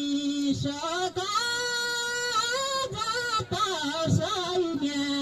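A solo voice singing a thadi bhaka, the unaccompanied folk song of Nepal's Karnali region. It holds long notes with wavering, ornamented turns between them and takes a few short breaks.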